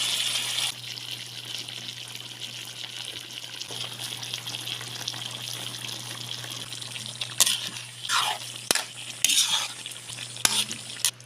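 Chicken adobo sizzling in the pan, loud for the first moment, then a steadier, quieter sizzle. In the last few seconds a utensil stirs and scrapes the pan several times with sharp clicks.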